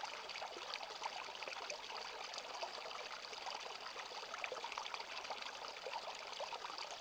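Small woodland stream pouring over a low step of rocks: a steady splashing trickle made up of many small splashes.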